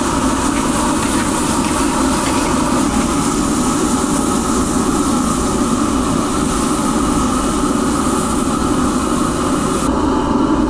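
Steady machine noise running at an even level throughout. A high hiss in it cuts off suddenly near the end.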